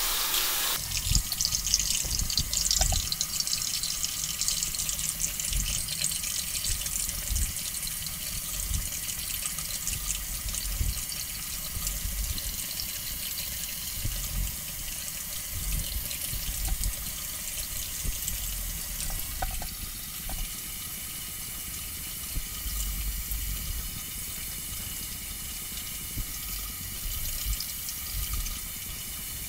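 Bathroom tap running steadily into the sink, with soft low bumps now and then.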